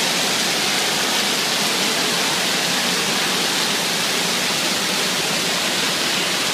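Steady rush of water pouring and spraying from an indoor water-park play structure.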